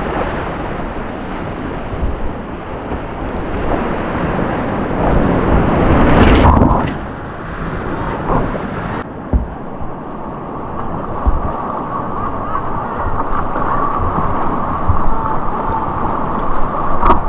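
Rushing whitewater, with wind buffeting the microphone. About nine seconds in, the high hiss cuts off abruptly and the water noise turns duller.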